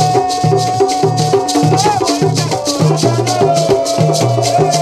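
Street percussion band: small hand drums and empty wooden crates slapped by hand, with a beaded gourd shaker rattling through a fast, steady rhythm. Men sing over it, one voice holding a long note.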